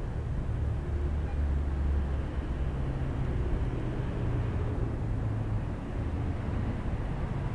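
Steady rumble and tyre hiss of road traffic going by.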